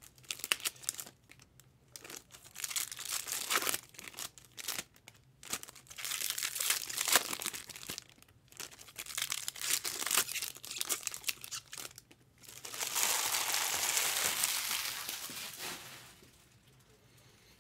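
2023 Topps Chrome Cosmic card pack wrappers crinkling and tearing as packs are ripped open and handled, in many short rustles, then a longer stretch of steady crinkling about thirteen seconds in that fades out near the end.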